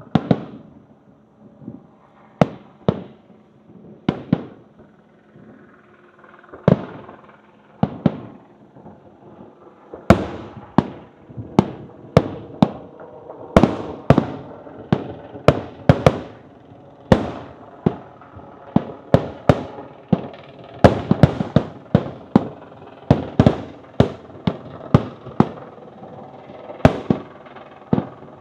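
Aerial fireworks shells bursting in sharp, echoing bangs. They come a few at a time for about the first ten seconds, then build into a rapid barrage of several bangs a second, loudest about three quarters of the way through.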